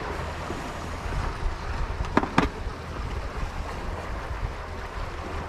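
Wind buffeting the microphone over the wash of the sea, with two sharp clicks a little after two seconds in from tackle being handled while a minnow lure is clipped on.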